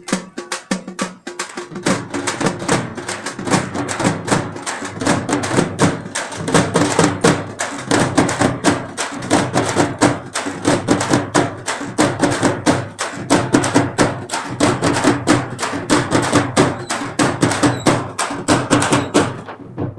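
Upbeat music with a fast, busy drum beat.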